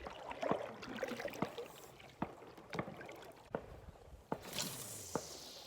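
Kayak being paddled: water splashing and dripping with each paddle stroke, with a few sharp knocks scattered through.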